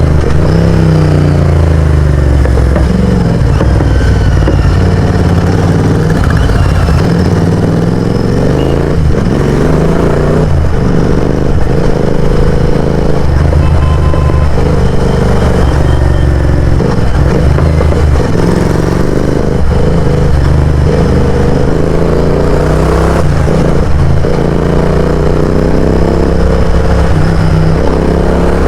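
Royal Enfield GT650's 648 cc parallel-twin engine through a loud aftermarket exhaust, accelerating through the gears again and again: the engine note climbs, drops at each shift, then climbs again.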